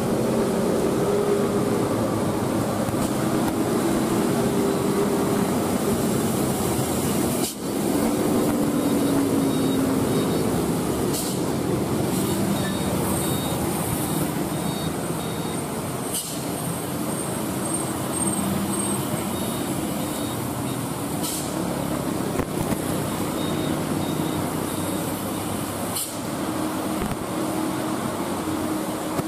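Truck and car engines running with steady road traffic noise, a continuous rumble with wavering engine hums. The sound breaks off abruptly and resumes a few times, first about seven seconds in.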